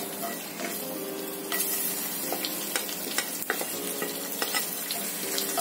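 Mustard and cumin seeds spluttering and sizzling in hot oil in a nonstick frying pan, with many small pops, while a plastic spatula scrapes and stirs them. Chopped garlic drops into the oil about four seconds in.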